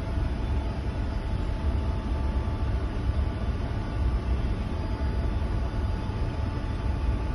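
Steady low rumble of running machinery in a ship's engine room, with a faint steady hum above it.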